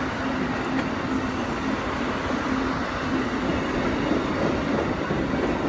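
Amtrak passenger cars, a Viewliner sleeper and a baggage car, rolling past as the train departs: the steady noise of steel wheels running on the rails.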